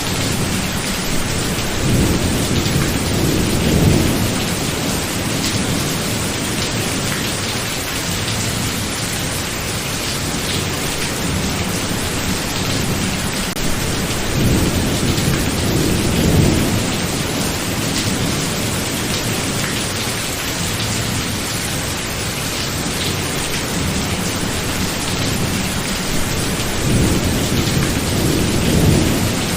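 Heavy, steady rain in a thunderstorm, with thunder rolling low three times: about two seconds in, around the middle, and near the end.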